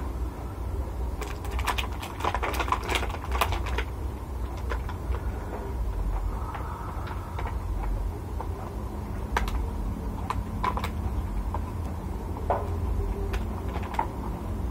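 Close-miked eating by hand: small sharp clicks and smacks from chewing and from fingers working rice and side dishes in a plastic container. The clicks come thick in the first few seconds, then one at a time.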